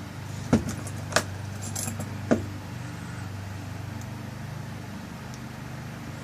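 Sharp metal clicks of a lock cylinder's tail piece and parts being handled as the tail piece is screwed on: three distinct clicks in the first two and a half seconds, with a few fainter ticks, over a steady low hum.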